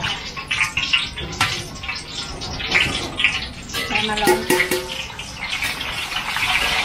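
Pork cracklings sizzling in hot oil, with a steady hiss broken by many sharp pops and crackles as the skin crisps.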